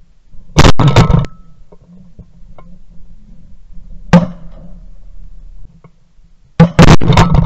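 Benelli SBE3 semi-automatic shotgun firing, heard from a gun camera on the barrel: a quick pair of loud blasts about half a second in, a single shot around four seconds, and another quick pair of loud blasts near the end.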